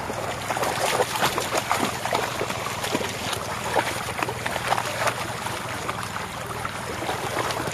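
Dogs wading and splashing through a shallow, flowing river: irregular small splashes over the steady rush of the water.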